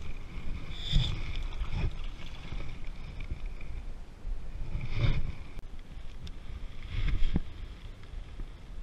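Wind buffeting the microphone in a low rumble, swelling in gusts about a second in, around five seconds and again around seven seconds.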